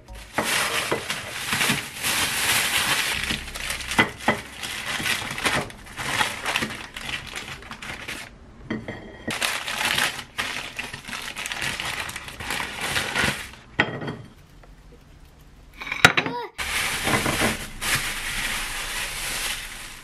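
Plastic bag and plastic wrap crinkling loudly as they are handled and pulled open, in long stretches with short pauses, and one sharp click about sixteen seconds in.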